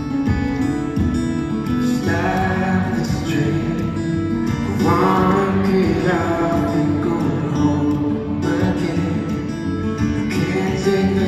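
Live solo performance of a song: a man singing over his own acoustic guitar, heard through a large arena's sound system. The voice comes in about two seconds in over the guitar.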